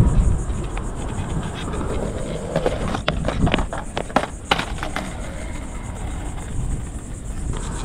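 Skateboard wheels rolling on a concrete skatepark ramp with a steady low rumble. A cluster of sharp clacks from the board striking the concrete comes about halfway through.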